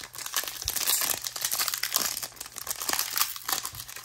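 Trading cards being flipped through and shuffled by hand: a steady run of quick rustles and light clicks.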